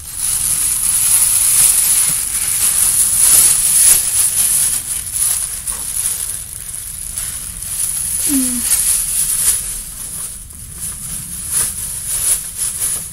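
Thin plastic shopping bag rustling and crinkling as it is handled and rubbish is stuffed into it.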